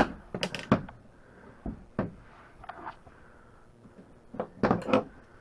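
Hand tools being picked up and handled: a few sharp clinks and knocks, with a cluster of them near the end.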